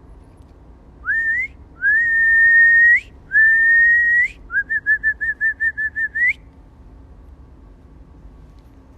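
A person whistling a series of calls: a short rising whistle, two long held notes that each turn up at the end, then a fast warbling note that rises at its close.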